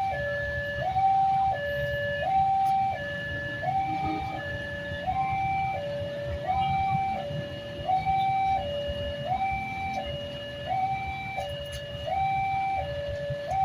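Railway level-crossing warning siren sounding a steady two-tone high-low alternation, switching pitch about every three quarters of a second, over a low rumble: the warning that a train is approaching and the barriers are down.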